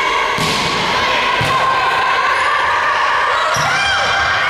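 Volleyball struck three times during a rally in a gym: dull thumps about a second apart, then a third some two seconds later. Players shout near the end.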